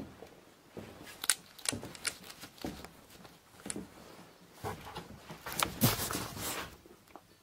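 Footsteps and small knocks on a wooden floor in an empty house, then about five and a half seconds in a louder clatter of knocks and scraping lasting about a second: a strange noise that the investigator places in the attic.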